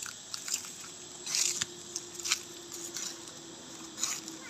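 Dry fallen leaves crunching and crackling in short, irregular bursts, about half a dozen times, with a faint steady low hum underneath.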